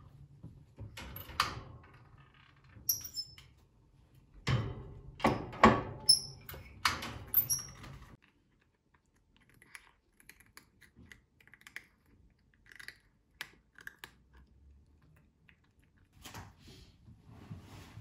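Light knocks, clicks and brief metallic pings as a cat climbs about a wire-frame cage, her paws and claws hitting the metal bars and wooden shelf. They are loudest in the first half, with fainter ticks afterwards.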